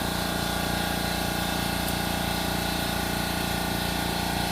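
Air compressor running steadily, supplying the shop air that pressurizes the cylinder to hold the valves closed.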